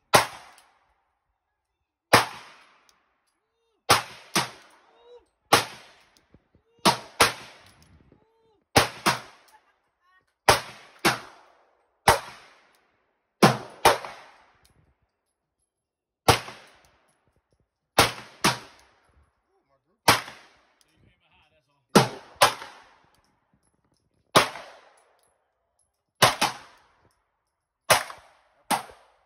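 Semi-automatic pistol fired about twenty-five times at a slow, steady pace, roughly a shot every second or two, with some shots in quick pairs. Each shot dies away in a short echo.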